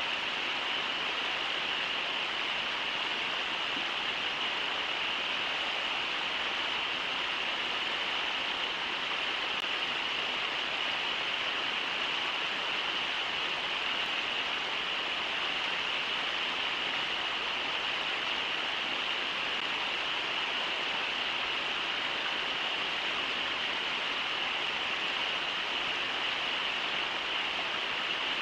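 Steady rushing of the Brooks River over its riffles, an even hiss of water that never changes.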